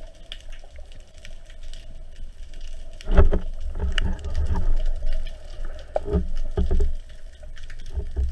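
Underwater sound picked up through an action-camera housing: a faint steady hum and scattered crackling clicks, with low rumbling surges of water against the housing as the diver moves, strongest from about three seconds in.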